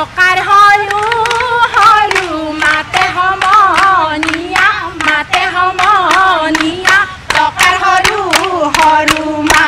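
A group of women singing a Jeng Bihu song together in long wavering held notes, with sharp rhythmic clapping through it.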